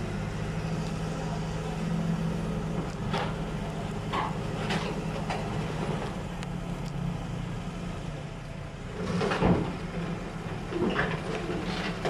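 Crawler excavator's diesel engine running steadily, with a few sharp metal clanks over it, the loudest about nine and a half seconds in.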